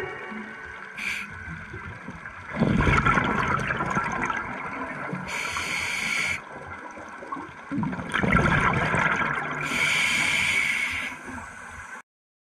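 Scuba diver breathing through a regulator underwater: two bubbly exhalations, each followed by a shorter hiss of inhalation. The sound cuts off abruptly near the end.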